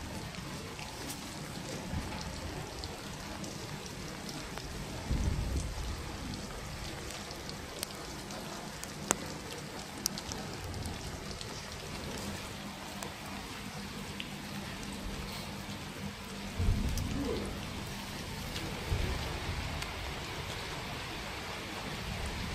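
Steady outdoor hiss, with low buffets of wind or handling on the microphone about a quarter of the way in and again about three-quarters of the way through, and two sharp clicks a second apart near the middle.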